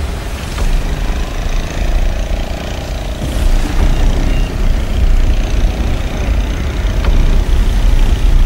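Outboard motor of a small wooden boat running as it heads out through breaking surf, mixed with the steady wash of waves and a heavy low rumble of wind.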